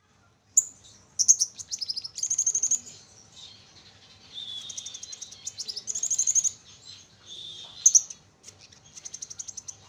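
Pin-tailed parrot finches calling: very high, thin chirps and rapid trills that come and go in bursts of a second or so, with some lower buzzy notes among them.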